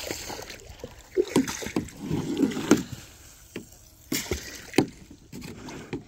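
Water from a garden hose splashing and sloshing in a plastic wading pool, with several sharp knocks mixed in.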